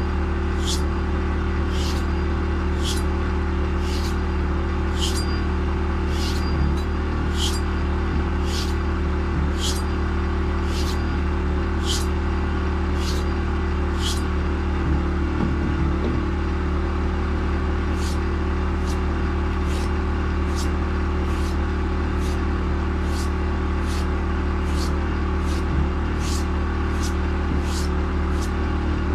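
Motor-driven belt sharpener running with a steady hum while a knife edge is drawn across the sanding belt in quick regular passes, each a short hiss, about three every two seconds, with a pause of a few seconds midway.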